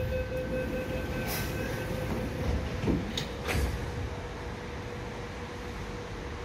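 Sydney Metro train standing at the platform behind platform screen doors: a steady electronic tone for about the first two seconds, then two or three clunks around three seconds in, typical of the doors closing, over a steady hum from the train.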